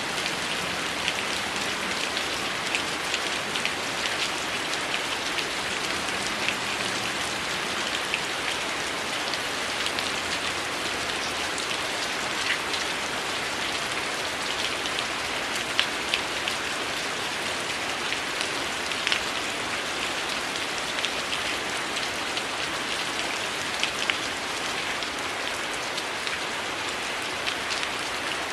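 Heavy rain falling, a steady even hiss with scattered sharp ticks and pops throughout.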